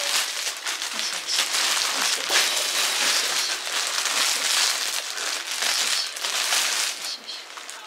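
Clear plastic bag crinkling and rustling as hands pull it open and off a fabric pet carrier. The rustle is loud and uneven, easing off near the end.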